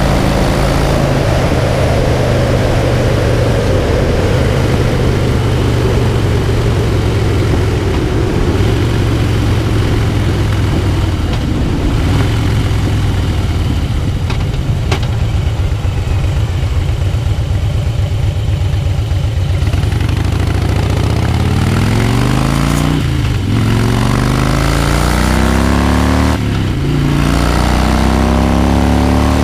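Harley-Davidson Cross Bones' air-cooled Twin Cam V-twin running under way, with wind rush. It cruises steadily, then eases off and slows through the middle, then pulls away with the engine note rising, breaking off twice for upshifts in the last third.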